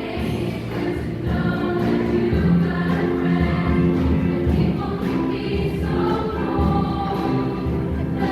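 Junior high school choir singing, holding chords that change about once a second, over a steady low pulse of accompaniment.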